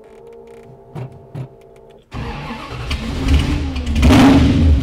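1964 Dodge 330's 383 V8 firing up: a steady whine for about two seconds, then the engine catches suddenly and runs loud, with a brief rev about four seconds in.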